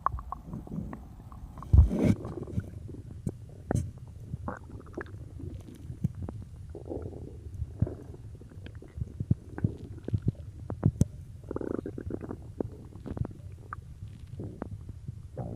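A person's stomach growling after drinking cola: many short, irregular gurgles and pops over a steady low rumble. There is a sharp thump about two seconds in.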